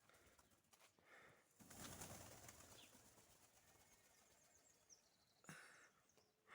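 Pigeons' wings flapping as the birds fly up, loudest in a burst about two seconds in, with a shorter flurry near the end. A few faint high bird chirps come in between.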